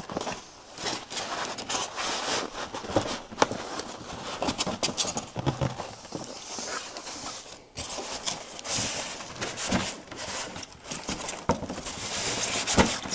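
Polystyrene foam insert scraping and squeaking against the cardboard box as it is worked up and out by hand, a tight fit. Irregular rubbing and scratching broken by many sharp clicks and crackles.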